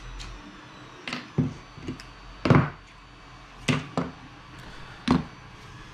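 Irregular knocks and clunks of hard objects being handled and set down on a workbench, about seven in all. The loudest comes about two and a half seconds in.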